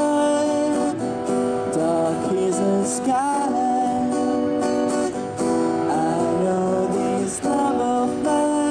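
Live street music: an acoustic guitar strummed steadily under a held, sliding melody line.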